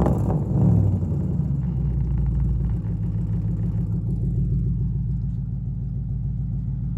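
2012 Ford Mustang GT's 5.0-litre V8 dropping back from a rev within the first second, then idling steadily.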